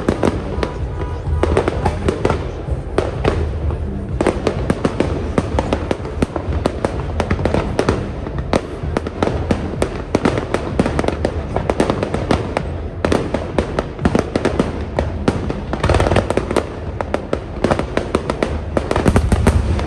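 Fireworks display: a dense, continuous barrage of sharp bangs and crackling over deep low booms, swelling louder near the end.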